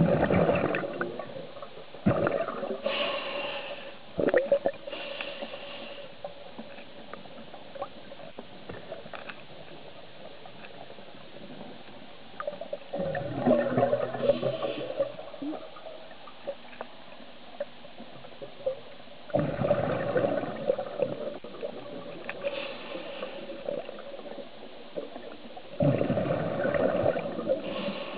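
Scuba diver's regulator breathing underwater: several bursts of exhaled bubbles gurgling out, each lasting a second or more, with the brief hiss of an inhaled breath after some of them.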